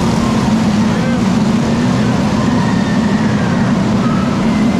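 Engines of several small winged sprint-style race cars running laps on a dirt oval: a steady, loud drone with faint whines rising and falling as the cars go around.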